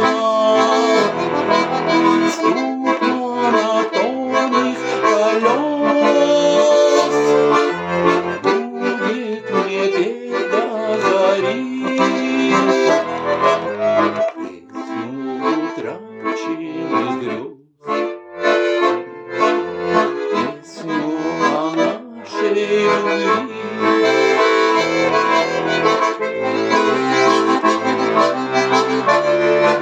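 Bayan (Russian button accordion) playing an instrumental melody over chords and bass notes, with one short break about two-thirds of the way through.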